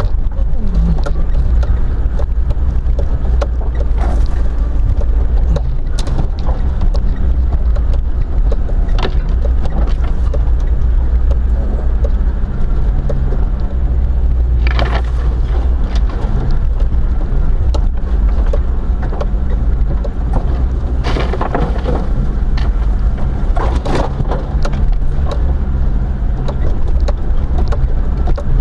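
Off-road vehicle driving slowly over a rough forest track, heard from inside the cabin: a steady low engine-and-road rumble, broken by scattered knocks and rattles and by a few scraping passes, likely brush or branches rubbing along the body.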